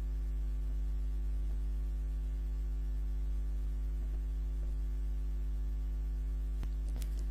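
Steady low electrical hum, with several steady tones above it. Two faint clicks come near the end.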